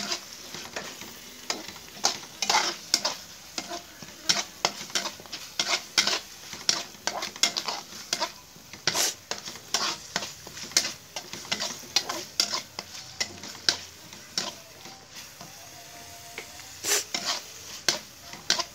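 Chili paste sizzling as it is sautéed in hot oil in a pan until fragrant, stirred with irregular scrapes and clacks of a utensil against the pan, about two a second.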